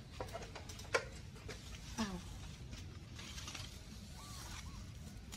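Grapevine leaves and stems rustling as grape bunches are picked by hand from an overhead vine, with a sharp click about a second in.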